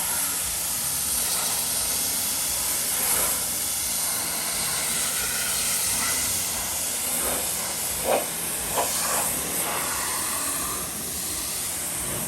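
Pressure washer spraying water onto a car's paint, rinsing off a degreaser pre-wash and the top layer of dirt. It is a steady hiss with a few brief louder splashes about eight and nine seconds in.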